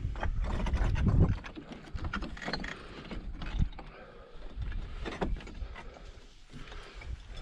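Climber scrambling over broken rock: irregular knocks and scrapes of boots and hands on stone. Wind rumbles on the microphone, heaviest in the first second and a half.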